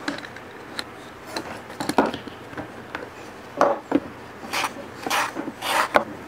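Wooden lamp parts being handled by hand: light clicks and knocks, then a run of short scraping rubs, about two a second, near the end.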